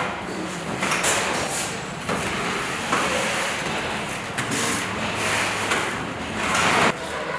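Factory workshop noise: a rushing hiss that swells and fades every second or so, over a faint steady low hum.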